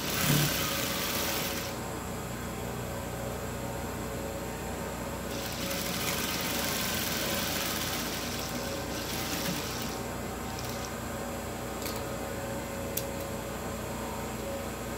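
Industrial sewing machine stitching fabric in two runs: a short run at the start and a longer one from about five to ten seconds in, with a steady hum between runs. Two light clicks near the end.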